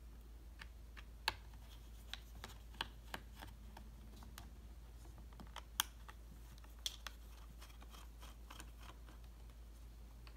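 Faint, irregular clicks and ticks of a small six-point (Torx) screwdriver working the bottom-panel screws out of a Dell XPS laptop. Two clicks stand out, about a second in and near the middle.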